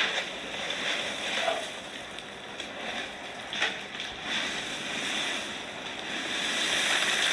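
Heap of cheese balls rustling and shifting in a bathtub, with a few brief clatters and the rustle growing louder near the end.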